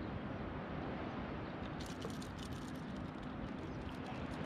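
Steady low open-water background noise, with a short run of faint light clicks about two seconds in as gloved hands work at the fish and lure in the kayak's cockpit.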